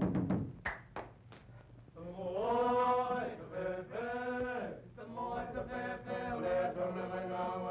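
The last few drum beats and a few sharp clicks, a quieter second, then from about two seconds in a group of voices chanting in long held notes that slide down at their ends.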